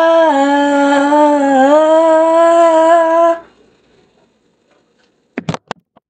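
A voice holding one long open 'ahh' note for about three seconds, dipping slightly in pitch twice before it stops. A few short sharp clicks follow near the end.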